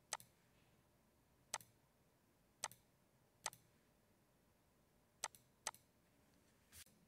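Computer mouse button clicking about seven times at uneven intervals, two of them in quick succession about five seconds in, as points of a drip line are placed in a drawing program.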